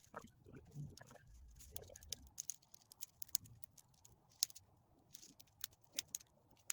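Irregular small crackles and snaps of dry twigs and wood being handled, with some muffled rustling in the first second or two.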